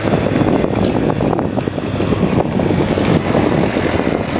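Wind buffeting the microphone: a loud, steady, fluttering rumble.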